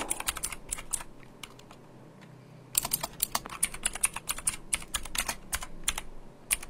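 Computer keyboard keys clicking under typing: a few scattered keystrokes, a pause of about a second and a half, then a fast, dense run of typing.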